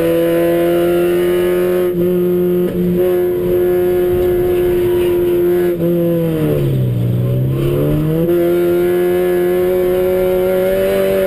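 Toyota Starlet race car's engine running hard at high revs, heard from inside the cabin. About six seconds in the revs drop sharply for a second or so as the driver lifts off for a corner, then climb back up as he gets on the throttle again.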